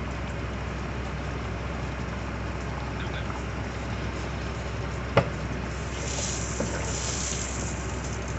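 Beaten egg frying in hot oil in a nonstick pan, a steady sizzle, with one sharp knock about five seconds in.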